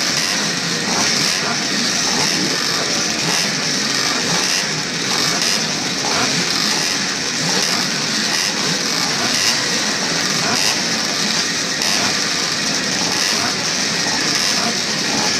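A start line full of classic two-stroke motocross bikes running together, engines idling and blipping their throttles while waiting for the start, a steady dense din with no single machine standing out.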